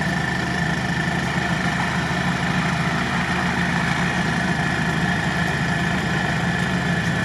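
Engine of a modified UAZ-469 off-roader idling steadily, with a thin steady whine over the engine note, while the truck sits bogged in swamp mud.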